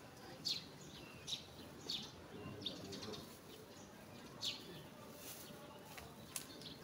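A bird chirping: short, high, downward chirps repeated irregularly, about one a second.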